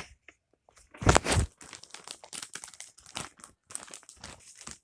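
Paper and plastic packaging crinkling and rustling as it is handled, in irregular bursts, loudest about a second in.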